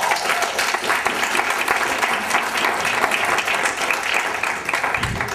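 Audience applauding, a dense patter of many hands clapping that begins to die down near the end.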